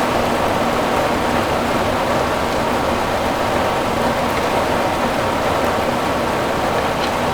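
Steady rain drumming on a sheet-metal roof, a dense even patter of drops.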